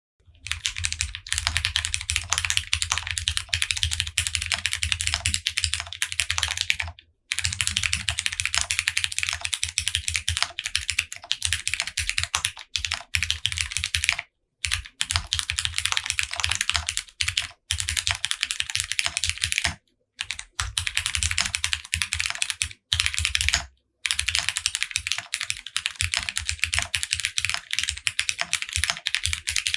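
Continuous, fast typing on an OwLab Spring mechanical keyboard with lubed Cherry MX Brown tactile switches on light 55g springs, GMK keycaps, a polycarbonate plate and plate and case foam. The typing stops in brief pauses about seven, fourteen, twenty and twenty-four seconds in.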